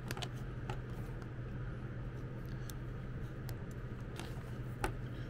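Handling of the plastic 9-pin connectors of an e-bike motor extension cable and its plastic bag: a scatter of light clicks and rustles, the strongest click near the end, over a steady low hum.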